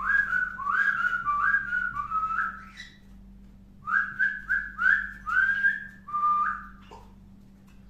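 Whistling in two runs of short rising notes, five or six notes each, with a gap of about a second between the runs.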